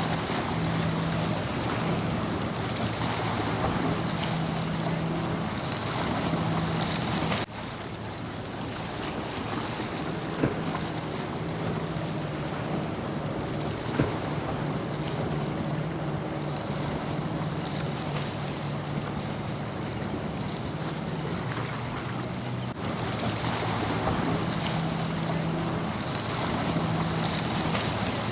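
Boat engine running with a steady low hum over the wash of waves and wind noise on the microphone. The sound changes abruptly twice.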